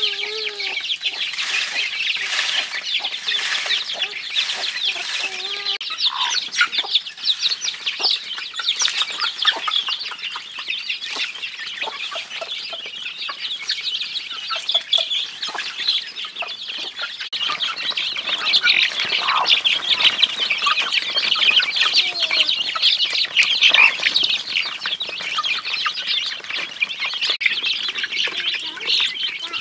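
Chickens clucking, with dense high chirping over it.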